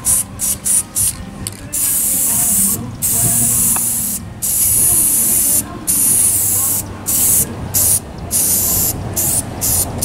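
Aerosol spray can of clear-coat finish hissing in a string of spurts. They are short and quick at first, then longer sprays of about a second each, with brief breaks between.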